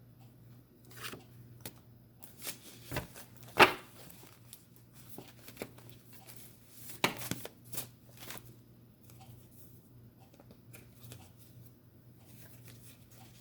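A deck of tarot cards being shuffled and handled: a scatter of short snaps and taps, the loudest about three and a half seconds in and another cluster around seven to eight seconds.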